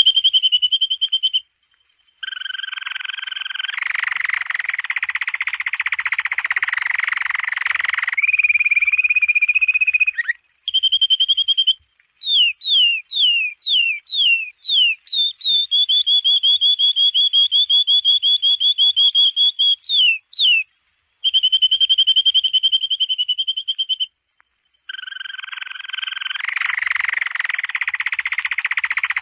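Domestic canary singing: fast rolling trills on one high pitch, a run of quick downward-sweeping notes, and rough buzzy stretches, broken by short pauses.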